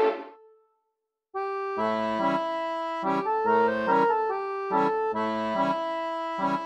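Accordion background music. A held chord fades out at the start, and after about a second of silence an accordion tune begins over a rhythmic low accompaniment.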